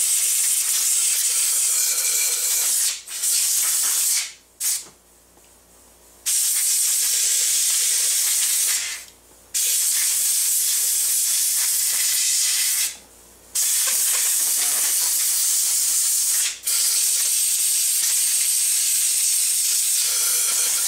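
Compressed air hissing from a pistol-grip air blow gun as it blows out an AR-15 lower receiver. It comes in about six long blasts of two to four seconds each, with short pauses between them.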